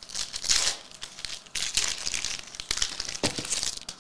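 Plastic wrapper of a trading-card pack being torn open and crinkled by hand, in repeated bouts of crackling.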